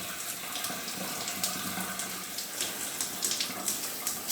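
Water spraying steadily from a Dream Spa multi-setting shower head, with irregular spattering splashes.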